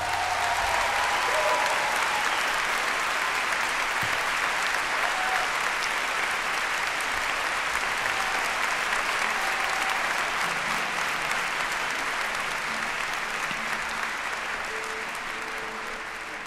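Concert audience applauding at the end of a live song, a steady clapping that fades toward the end.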